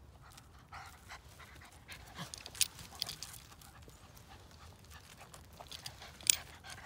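Small dog panting in short, irregular puffs close to the microphone, with a sharp click about two and a half seconds in and a louder one near the end.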